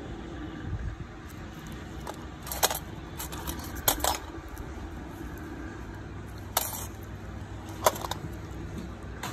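Steel nail instruments clinking against one another: a handful of sharp metallic clinks at irregular moments, over a steady low background hum.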